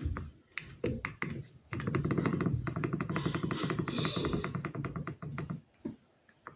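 Alcatel One Touch 2010X flip phone: a few separate clicks, then about four seconds of a fast, clicky, rhythmic ringtone that stops shortly before the end.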